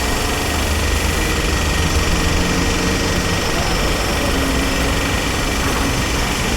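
Construction machinery running steadily, a deep continuous engine drone with a dense mechanical rumble and no breaks.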